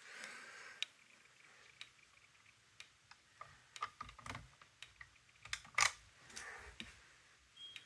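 Faint, scattered clicks and taps of hands working fire alarm equipment, a few sharper clicks about halfway through. Near the end a steady high-pitched electronic tone starts.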